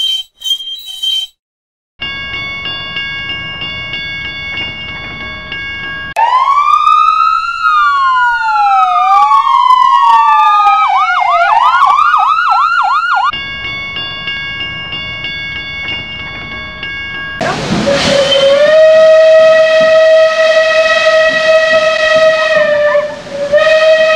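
Dubbed sound effects: a few bell strikes, then a steady electronic tone, then several police sirens wailing and yelping over one another for about seven seconds. The steady tone comes back, and then a long, loud whistle sounds, dipping briefly near the end.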